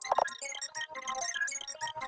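Background music of quick, plucked or bell-like notes in a steady rhythm.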